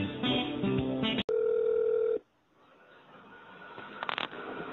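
Hold music heard down a telephone line, cut off by a click about a second in. A single steady telephone tone about a second long follows, then faint line hiss with a brief crackle near the end.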